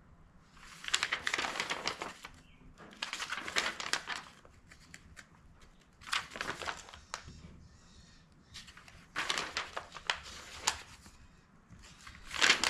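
Paper pages of a manual being leafed through and handled: crinkling rustles in about five bursts of a second or so each, with short pauses between.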